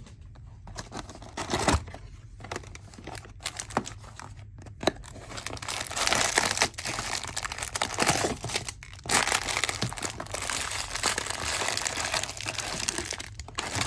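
Plastic wrapping crinkling and tearing as a sealed hobby box of baseball cards is unwrapped and opened by hand, with sharp little crackles. Sparse at first, then near-continuous from about halfway.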